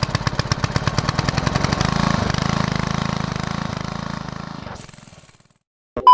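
The engine of a small land-levelling machine running with a rapid, even beat of about eight to nine pulses a second. It grows a little louder, then fades away to silence, and a loud electronic beep starts at the very end.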